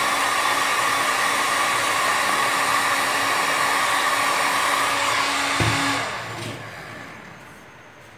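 Handheld electric heat gun blowing hot air steadily with a low hum. About six seconds in it is switched off and its sound fades away over the next two seconds.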